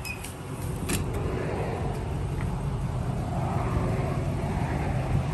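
A 5.7-litre Hemi V8 pickup engine idling steadily, a low rumble, with a single sharp click about a second in.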